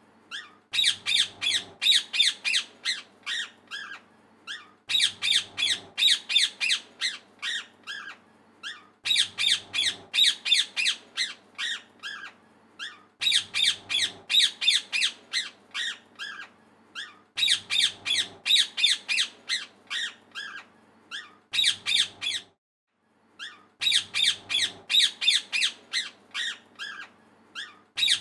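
Parrot chirping and squawking loudly in rapid runs of sharp, high calls, several a second. The runs last about three seconds and come again about every four seconds, with brief pauses between.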